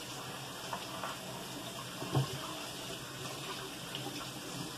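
Kitchen faucet running steadily into a stainless steel sink as bell peppers are rinsed by hand under the stream. A brief knock comes about two seconds in.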